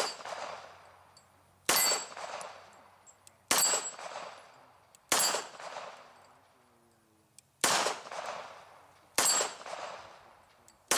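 Hungarian PA-63 9x18mm Makarov pistol fired in slow, single aimed shots, about one every two seconds; each crack trails off in a short echo.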